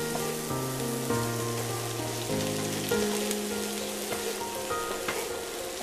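Shredded cabbage and carrots sizzling in a frying pan while being stirred with a wooden spoon, an even rain-like hiss with a few light clicks, under background music of held notes.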